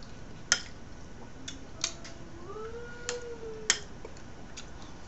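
A fork clicking and scraping on a ceramic plate while picking at grilled fish: about six short, sharp clicks, spaced unevenly.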